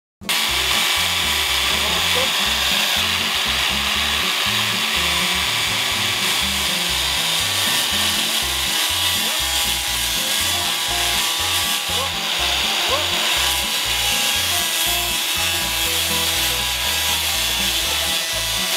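Angle grinder fitted with a paper cutting disc running steadily, the spinning paper disc held against a watermelon's rind.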